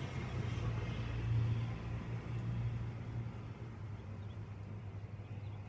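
A passing car's low road rumble fading away as it drives off.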